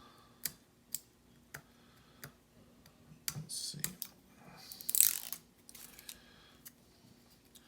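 Scattered light clicks and taps of small objects being handled on a desk, with two short rustles partway through.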